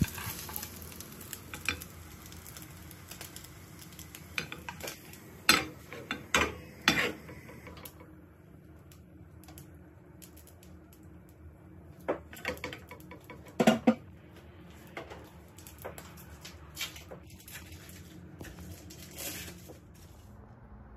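Kitchen utensils clinking and knocking against pans and dishes in a string of separate strikes, over oil sizzling that fades out about eight seconds in.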